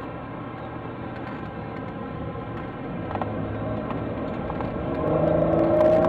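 Supercharged 3.8-litre V6 of a 2004 Chevrolet Impala SS heard from inside the cabin while driving: running quietly at first, then the engine note grows louder and rises as the car accelerates, most of all from about five seconds in.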